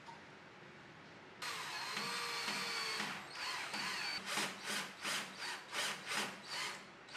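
Black+Decker cordless drill driving a screw through a metal sliding-door track into timber: a steady whining run of about a second and a half, then short trigger bursts, about two or three a second, as the screw is driven home.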